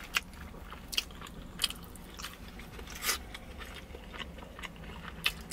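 Close-miked chewing with a handful of sharp mouth clicks and smacks, about one every second.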